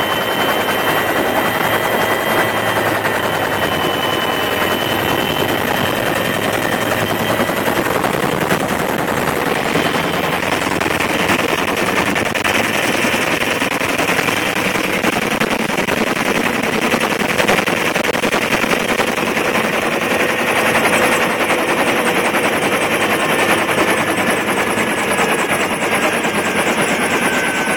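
Helicopter engine and rotor running, heard from inside its open-door cabin: a loud, steady rotor noise with a high steady whine that drops slightly in pitch near the end.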